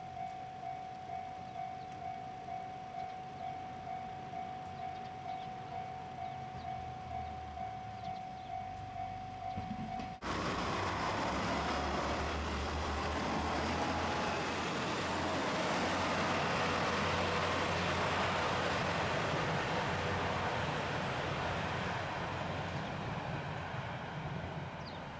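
Level-crossing alarm ringing steadily about twice a second, then breaking off abruptly about ten seconds in. A diesel train runs past the crossing with a rumble that swells and then fades.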